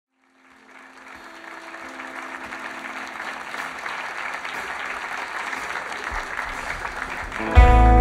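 An applause-like wash of noise swells gradually out of silence, then music starts abruptly near the end with a loud, deep bass.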